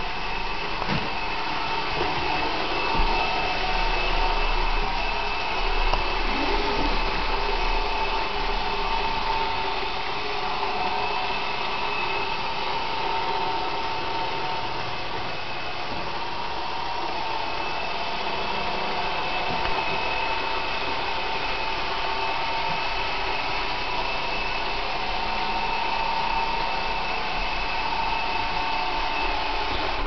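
Roomba robot vacuum cleaner running: a steady whirring hum with a constant whine in it.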